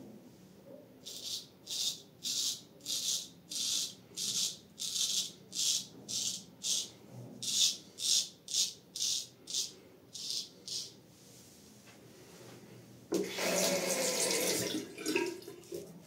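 Full-hollow-ground Solingen straight razor scraping through lathered beard stubble in about twenty short, high scraping strokes, roughly two a second. After a pause, a rush of running water lasts about a second and a half near the end.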